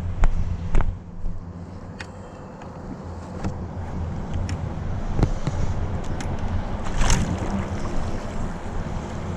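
Electric radio-control boat running out on the water, heard with wind and lapping water, with a short rush of noise about seven seconds in.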